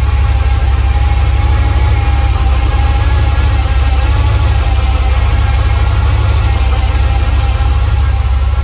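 Carbureted V8 car engine idling steadily.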